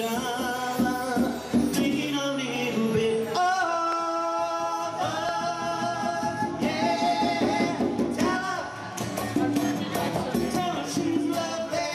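Live acoustic band playing a Latin-tinged song: two acoustic guitars strummed, one of them a twelve-string, with congas and a man singing at the mic.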